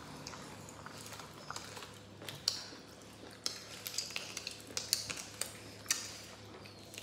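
Mukbang eating sounds: chewing and lip-smacking as people eat rice and curried meat by hand, a run of short, sharp, wet clicks, thicker in the second half, over a low steady hum.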